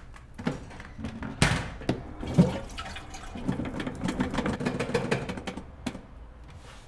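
Push-button toilet cistern being flushed: a few knocks and clunks, the loudest about a second and a half in, then a rush of water for a couple of seconds that cuts off abruptly near the end.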